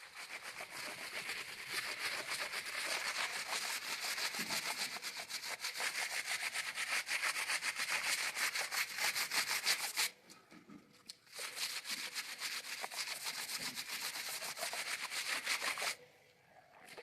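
Rapid back-and-forth scrubbing of fabric by hand, a dense rasping rhythm. It breaks off briefly about ten seconds in, then resumes and stops near the end.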